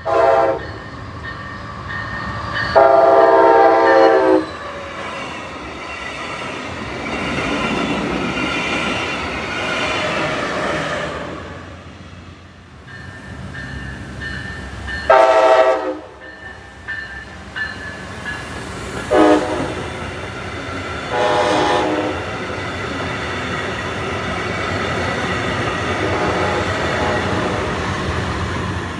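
Brightline passenger trains sounding their chord horns in a series of loud blasts, the grade-crossing warning, including a long, short, long sequence in the second half. Between and after the blasts come the steady roar and clickety-clack of the train rolling past on the rails.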